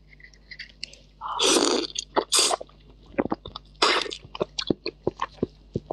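Wet mouth sounds of eating raw shrimp: three loud slurps as the contents of a raw shrimp head are sucked out, then many short wet clicks of chewing and lip smacks.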